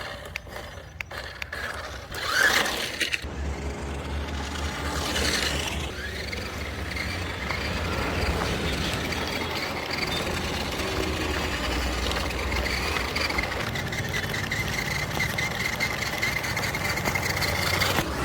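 A toy remote-control car's small electric motor and plastic gearbox whirring steadily as it drives, with a thin high whine joining about two thirds of the way in. A few clicks and a knock come first.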